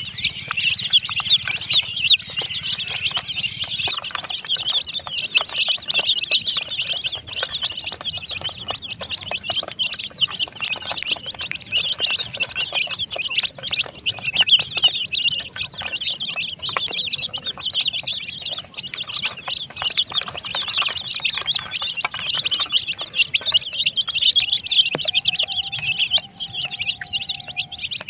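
A crowd of baby chicks peeping nonstop, a dense chorus of short, high chirps.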